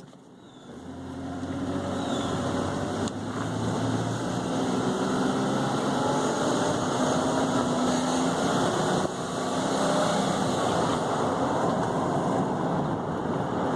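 Volvo XC90 T6's 2.9-litre twin-turbo straight-six running, its pitch drifting up and down, over a steady rushing noise. The engine smokes white and lacks power, which the owner takes for a bad turbo.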